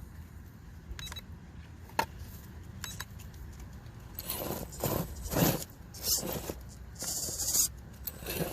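1/10-scale RC rock crawler working over playground surfaces: a few sharp clicks about a second apart, then bursts of scraping and crunching as it climbs and its tyres grip and slip.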